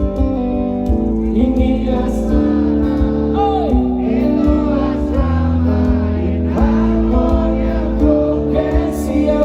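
Live band music with a voice singing over guitar, bass and drums.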